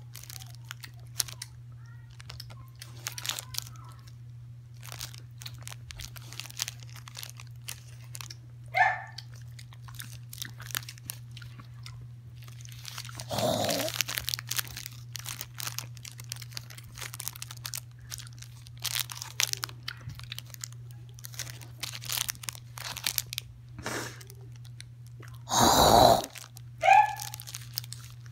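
Dog chewing and crunching food, with crinkling of a plastic wrapper, in many short crackles. A few louder short noises break in, the loudest near the end.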